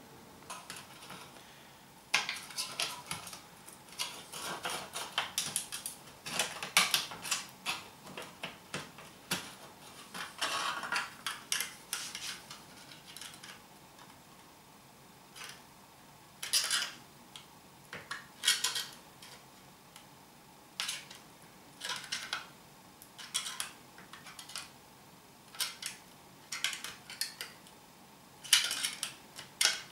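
Pliers gripping and bending the cut flap of a thin ribbed tin can: sharp metallic clicks and crinkling of the sheet metal. The clicks come thick and fast at first, then in short separate bursts every second or two through the second half.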